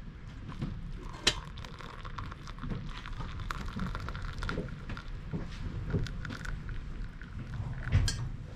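Light clicks and knocks of camp cookware being handled, over a steady hiss, with a sharper knock about a second in and another near the end.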